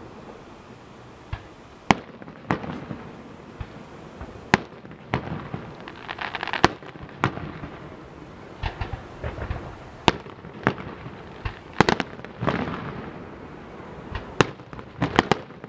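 Aerial firework shells bursting: about a dozen sharp bangs at uneven intervals, with stretches of hiss between some of them.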